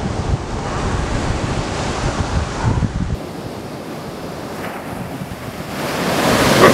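Ocean surf washing on a sandy beach, with wind rumbling on the microphone for the first three seconds or so. Near the end the surf swells to a louder wash.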